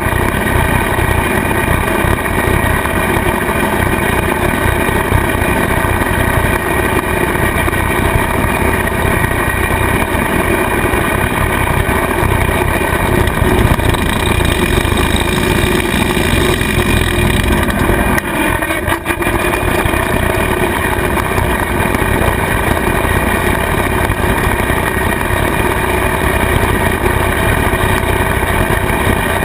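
Kubota tractor engine running steadily under load, powering a rotary cutter (bush hog) mowing grass, a steady mechanical drone. A little past halfway the sound briefly dips with a few knocks.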